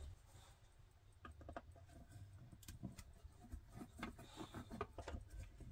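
Faint scattered clicks and light scraping of a small screwdriver working Phillips-head screws out of a plastic clock housing.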